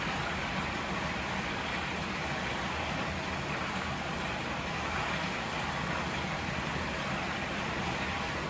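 River water running, a steady, even rush with no separate splashes or events.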